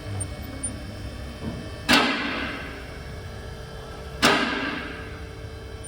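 Two sharp bangs about two and a half seconds apart, each ringing out briefly, over a steady low hum.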